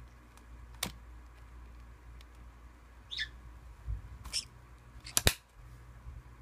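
The metal kiss-lock clasp and frame of a fabric coin purse clicking and rattling as it is worked open and shut, with a sharp double snap a little after five seconds as it closes.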